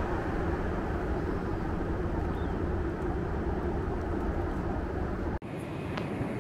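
Steady cabin noise of a Boeing 747-8 in flight: the even rush of airflow and engines heard from inside the cabin. About five seconds in it cuts off abruptly and resumes as a slightly thinner cabin noise with a few faint clicks.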